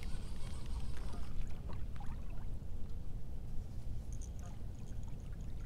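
Wind buffeting the microphone with water lapping against a fishing kayak's hull, and faint scattered clicks from a fishing reel being worked while fighting a fish.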